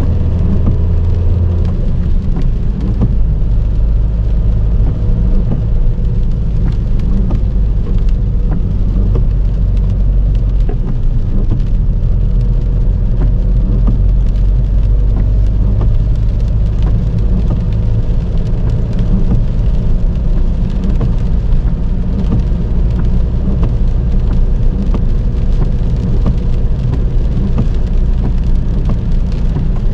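Heavy rain pattering on a moving car's body as dense, rapid ticks over a steady low rumble of the car on the road.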